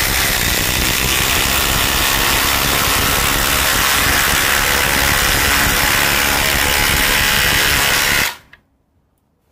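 Two cordless brushless impact drivers, a Ryobi PBLID02 and a Milwaukee M18 Gen 3, hammering together at full speed as they drive 5-inch 3/8 in lag bolts into stacked lumber. The loud, steady rattle cuts off sharply about eight seconds in.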